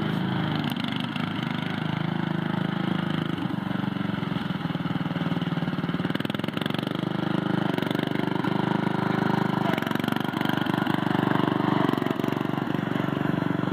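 Simplicity 4212 lawn tractor's 12 hp Briggs & Stratton engine running as the tractor is driven, its pitch stepping up and down several times as the throttle and load change.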